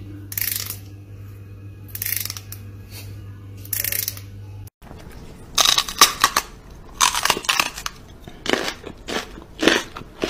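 Fingers strumming along the teeth of a comb: three short rasping zips, about one and a half seconds apart, over a steady low hum. After about five seconds, a quick run of louder scratchy, crunching bursts follows.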